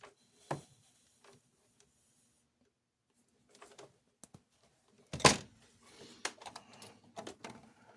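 Scattered small clicks and knocks of hand tools and small parts being handled on a workbench, with one louder sharp knock about five seconds in and a run of lighter clicks after it.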